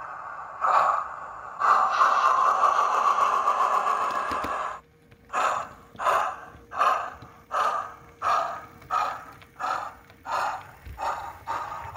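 DCC sound decoder in a model Merchant Navy class steam locomotive, 35004, playing steam effects through its small onboard speaker as the locomotive starts away. A puff is followed by a long hiss of steam that cuts off near halfway, then steady exhaust chuffs about one and a half a second, quickening slightly and fading a little as the engine pulls off.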